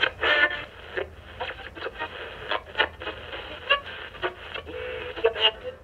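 Old valve radio playing through its speaker: a tinny, crackly broadcast with irregular bursts and short pitched fragments.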